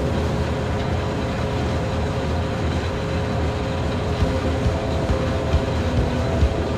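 Bobcat 873 skid steer's diesel engine running steadily under load with a hydraulic brush cutter attached, with a few short, sharp knocks in the second half.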